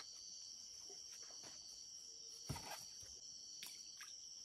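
Steady high-pitched chorus of crickets and other insects at dusk, with a few soft knocks from handling or footsteps on the bank, the loudest about two and a half seconds in.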